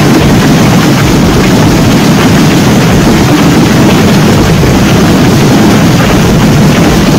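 Heavy rain mixed with hail pouring down, with strong wind buffeting the microphone: a loud, steady rushing noise.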